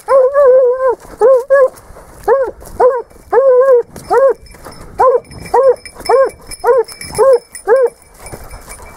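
Spanish hound (sabueso español) giving tongue on a wild boar trail: a quick series of about fifteen high, yelping bays, each rising and falling in pitch, some run together in pairs and triplets, the sign that the hound is working a fresh scent.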